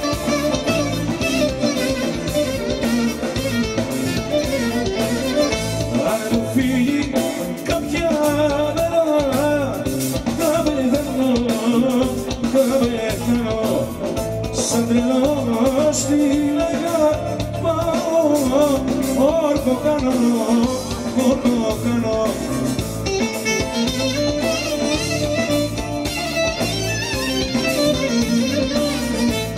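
Live band playing an instrumental passage without lyrics: a clarinet melody over electric bass, drums and keyboard.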